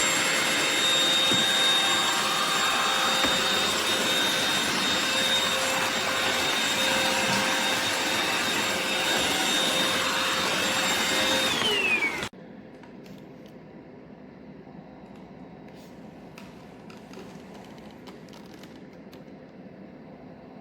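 Eureka RapidClean Pro cordless stick vacuum running with a steady high whine, then switched off about twelve seconds in. Its pitch falls briefly as the motor winds down before the sound cuts off. Afterwards there are only faint clicks and handling noise.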